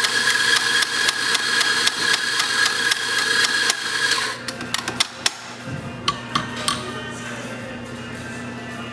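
Electric espresso grinder running, grinding coffee into a portafilter: a steady whine over a dense, rapid rattle. The motor stops about four seconds in, followed by a scattering of sharp clacks.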